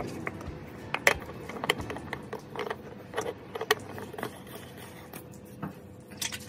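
New spin-on oil filter being screwed by hand onto the engine's filter mount, making a run of sharp metallic clicks and ticks as the can turns on its thread. The clicks bunch together through the first four seconds, and a few more come near the end.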